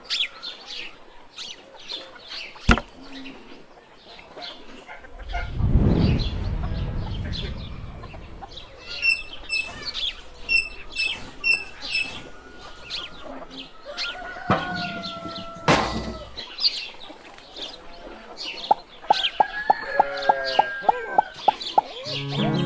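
Farmyard ambience of chickens clucking and small birds chirping, with a fast, even run of clucks near the end and a brief rush of noise about six seconds in.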